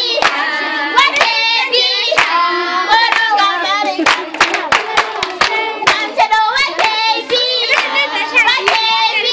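A group of children singing a song together, with hand clapping throughout.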